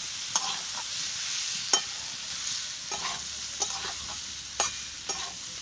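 Amla (Indian gooseberry) pieces frying in hot mustard oil in a metal karai, with a steady sizzle. A metal spatula scrapes and clicks against the pan as the pieces are stirred with ground spices, sharpest about two seconds in.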